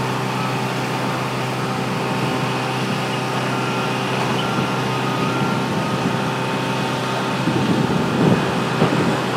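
Heavy diesel engine idling steadily, a constant hum with several fixed tones over a haze of noise. Some irregular low rumbling comes in late.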